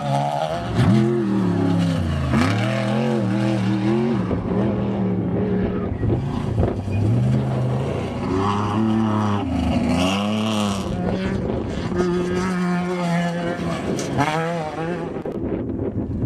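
Off-road desert race trucks passing one after another over rough ground, their engines revving hard, the pitch climbing and dropping again and again as the throttle opens and lifts over the bumps.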